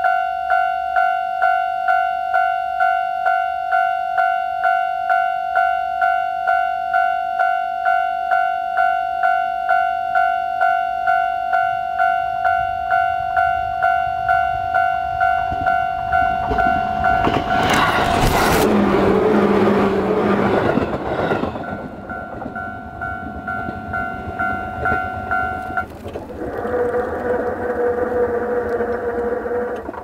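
Japanese level-crossing alarm sounding its electronic bell tone about twice a second, with a train passing over the crossing about 17 to 22 seconds in. The alarm stops near the end, and the Nippon Signal EM1015G electric crossing barriers hum steadily as they raise their arms.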